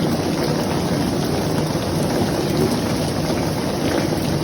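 Heavy rain pouring steadily, a dense even rush of noise.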